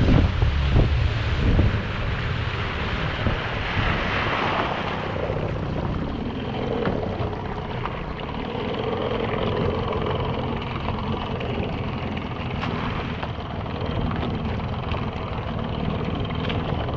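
Boat's outboard motor running under way with wind and hull spray, then eased back about two seconds in to a steady low idle as the boat slows.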